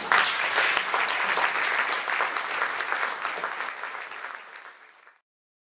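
Audience applauding, many hands clapping at once, tapering off and then cut off abruptly about five seconds in.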